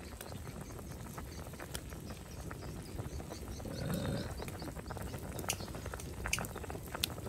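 Pan of sour fish soup boiling hard, bubbling steadily with scattered sharp pops. A short pitched sound rises over it about four seconds in.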